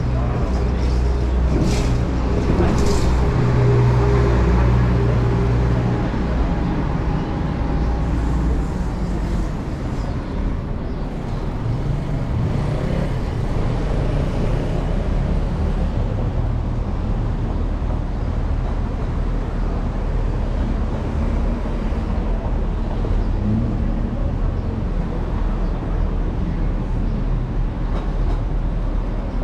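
City street traffic: a large vehicle's engine runs close by for the first six seconds or so, then eases into a steady rumble of passing traffic.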